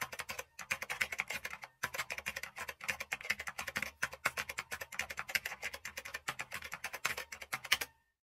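Typing on a computer keyboard: a rapid run of key clicks with two brief pauses near the start, stopping just before the end.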